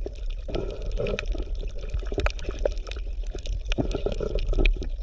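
Underwater bubbling and gurgling water sound: a continuous stream of small, irregular bubble pops over a low rumble.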